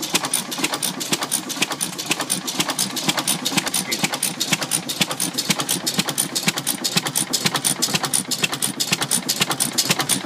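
International 10 HP "haircut" single-cylinder antique stationary engine running steadily with an even, rapid clicking clatter from its valve gear and igniter. It is a throttle-governed engine rather than a hit-and-miss, so it fires every cycle instead of coasting between firings.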